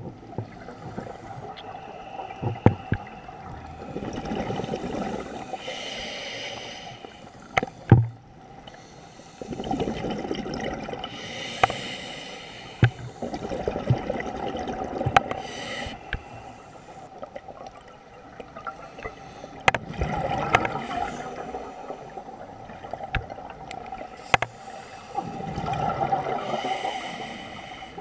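Scuba regulator breathing heard underwater: an exhaled rush of bubbles gurgling about every five or six seconds, with a short hiss of inhalation between breaths. Scattered sharp clicks run through it.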